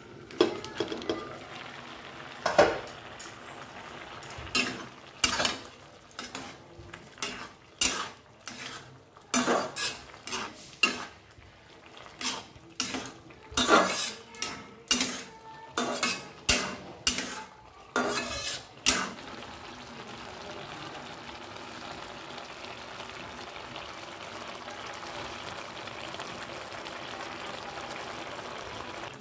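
A spatula clattering and scraping against an aluminium kadai as a spinach curry is stirred, in a quick irregular run of knocks. About two-thirds of the way through the stirring stops and the curry simmers with a steady bubbling hiss.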